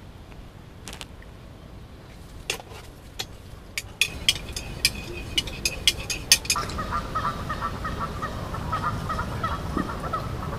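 A run of sharp clinks, then from about six and a half seconds in a flock of geese honking continuously.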